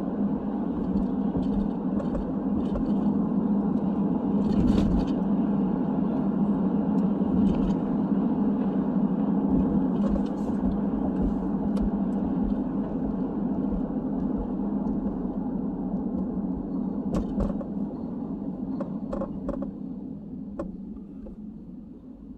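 Car driving on city streets, heard from inside: a steady drone of engine and road noise, with a few faint clicks. It gets quieter over the last few seconds.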